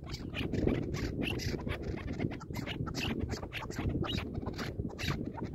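Chukar partridges calling in short, clipped chuck notes, several a second in an irregular run. Wind is rumbling on the microphone.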